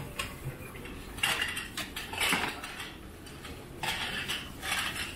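Kitchen knife scraping across a plastic cutting board and clinking against a plate as cut seafood is pushed into it, then set down on the board: three short scrapes and clinks.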